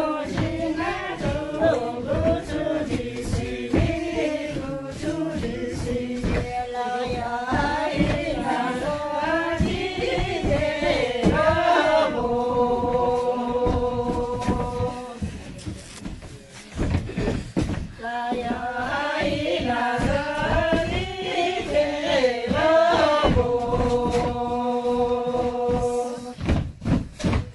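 A group of women singing a chant-like song together as they dance in a linked line. The phrases end in long held notes, about halfway through and again near the end, with the thud of their steps on the floor throughout.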